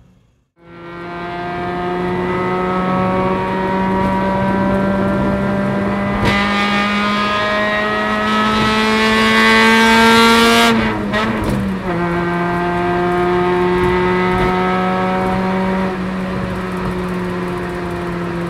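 Honda Civic EK9 Type R's 1.6-litre B16B VTEC inline-four running hard, its exhaust note fading in from silence and then climbing slowly in pitch. About six seconds in it turns harsher and louder. Near eleven seconds the pitch drops with a gear change, and the engine pulls on steadily at lower revs.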